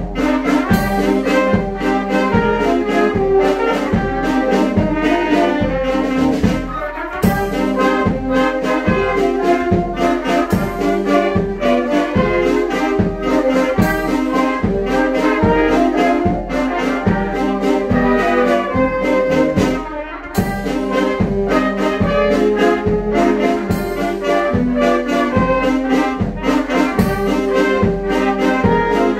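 Children's wind band playing, with trumpets and trombones over a steady percussion beat; the music dips briefly about two-thirds of the way through, then carries on.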